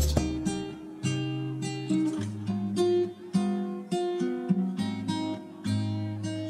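Background music on acoustic guitar, with single notes plucked one after another over sustained bass notes.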